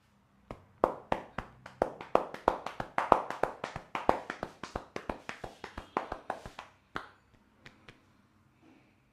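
A barber's hands slapping in rapid rhythmic percussion massage on a head or shoulders, about five sharp slaps a second for roughly six seconds. The run stops, and a few single taps follow near the end.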